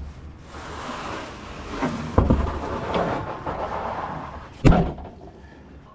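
Rustling and scraping, with a heavy thud about two seconds in and a sharp, loud knock near the end.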